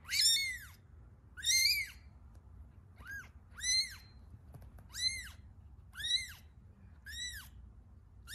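Very young kitten mewing: about seven short, high-pitched mews, roughly one a second, each rising then falling in pitch.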